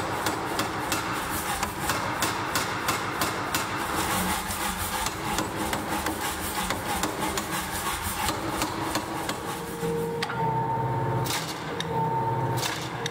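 Power hammer striking red-hot steel bar stock in rapid, even blows, several a second. About ten seconds in the blows give way to a machine's humming tone that starts and stops at roughly one-second intervals.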